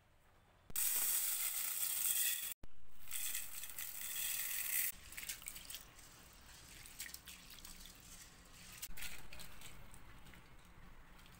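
Water sounds from hands working in a steel bowl. A loud rush of water lasts about four seconds, with a brief cut-out partway through. Then comes softer, uneven splashing and swishing as rice is washed by hand, and a fresh wet splash later on as raw prawns are handled in the bowl.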